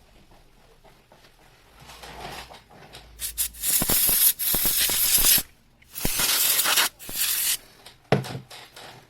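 Two loud bursts of close rubbing and scraping noise with clicks in them, each lasting a couple of seconds, followed by a single sharp click near the end.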